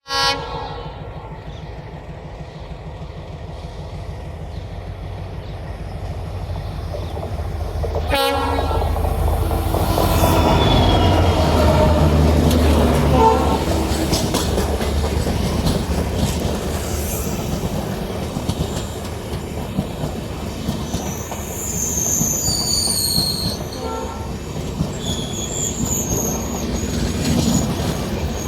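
WDP4D diesel locomotive sounding its horn in short blasts, at the start and again about eight seconds in, then its engine rumbling loudly as it draws in. The passenger coaches follow with a steady clatter over the rails and high-pitched wheel squeals near the end.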